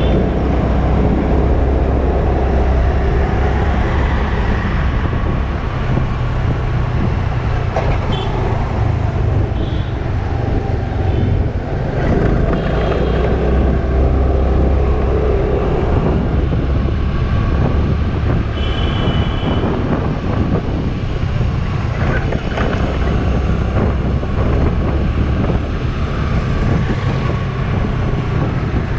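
Steady low rumble of a moving scooter and wind on the microphone, with road traffic around it.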